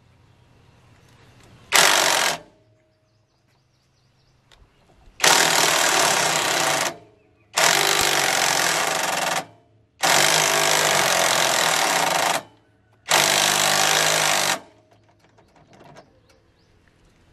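Cordless impact wrench hammering on the bolts of a tractor's rotary tiller blades, in five runs: one short burst, then four longer runs of about two seconds each with short pauses between.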